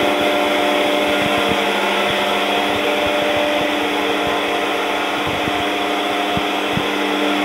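Tormach 1100 CNC mill running a profiling cut in sheet metal, with the spindle giving a steady whine and hum over the hiss of flood coolant spraying inside the enclosure.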